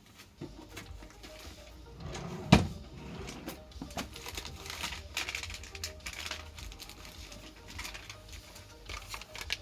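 Small items being picked up and handled: scattered light clicks and rustles, with one sharper knock about two and a half seconds in.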